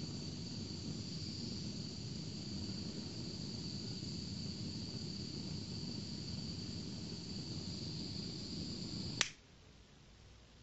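Hot air gun running steadily, a fan rush with a high whine over it, switched off with a sharp click about nine seconds in. It is heating the ceramic glower of a Nernst lamp to bring it to glowing.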